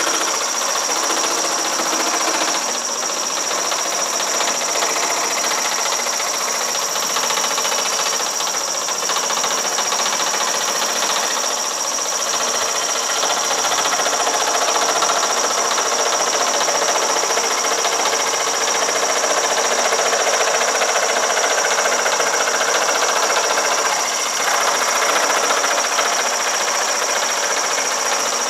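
Shopsmith 18-inch jigsaw running at 900 RPM, its reciprocating blade cutting steadily through half-inch yellow pine.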